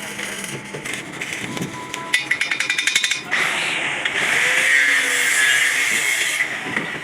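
Workshop tool noise: a quick run of rapid taps, then a power tool running steadily for about three seconds.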